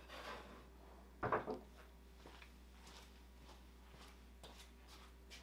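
Wood knocking on wood as the hickory slab is shifted on its support blocks: a short scrape, then one solid knock about a second in. Faint footsteps follow.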